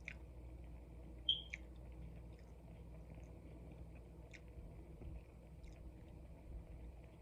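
A person chewing food close to the microphone: faint, scattered wet mouth clicks and smacks, with one sharper click a little over a second in.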